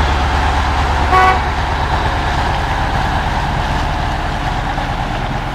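KrAZ heavy truck's diesel engine running with a steady low throb as the truck rolls slowly past, fading a little toward the end. One short horn toot sounds about a second in.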